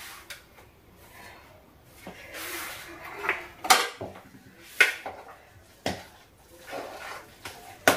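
Kitchenware being handled on a counter: several separate sharp knocks and clinks a second or so apart, with a short rustle just before the first of them.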